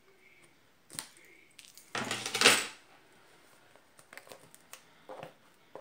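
House keys clicking against a card box while its plastic shrink-wrap is picked at and torn. A sharp click comes about a second in, a loud crackling rip of plastic about two seconds in, then a few light clicks and crinkles near the end.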